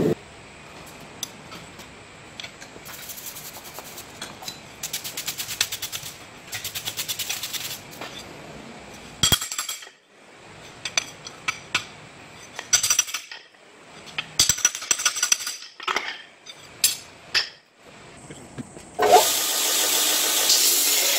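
Short runs of rapid scratching and scattered sharp metal clinks. About two seconds before the end, a belt grinder starts grinding a forged steel blade: a loud, steady hiss.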